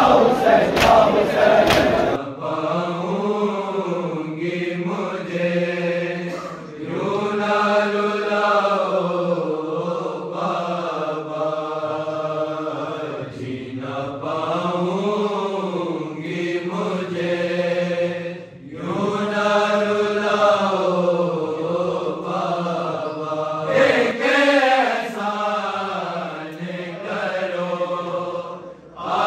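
A loud burst of intro sound effects for about two seconds, then a man's unaccompanied voice reciting an Urdu noha, a mourning lament, in long, sliding melodic phrases. It breaks off briefly twice between lines.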